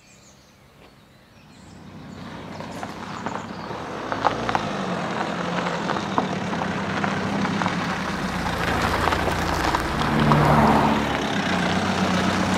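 A Vauxhall Astra driving slowly up a gravel track. Its engine hum and the crunch of its tyres on the stones grow steadily louder over the first few seconds as it approaches, then hold.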